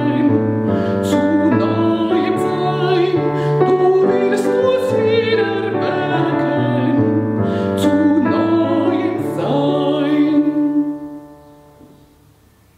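A solo female voice sings a hymn with vibrato, accompanied by a Kawai ES8 digital piano. The song ends about eleven seconds in, the final piano chord dying away.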